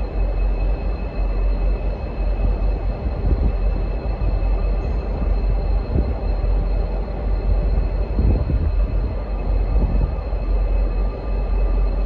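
V/Line N class diesel-electric locomotives idling with a steady low rumble, with faint steady high-pitched tones above it.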